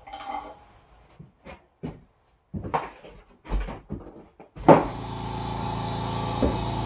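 A few scattered knocks and clunks, then a California Air Tools air compressor starts with a sharp kick about two-thirds of the way through. It runs steadily, a quiet hum over a hiss, slowly getting louder.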